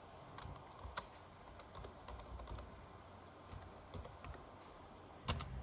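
Faint, uneven keystrokes on a Lenovo laptop keyboard as a password is typed in. There are a dozen or so scattered clicks, with louder ones about a second in and near the end.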